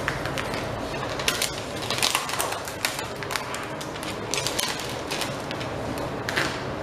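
Small plastic zip bags of diamond-painting drills and the canvas's clear plastic cover film crinkling and rustling as hands move and press them, in a string of short, irregular crackles.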